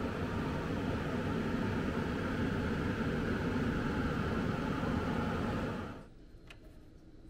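Steady whirring noise of a running appliance, which cuts off sharply about six seconds in, leaving a few faint clicks.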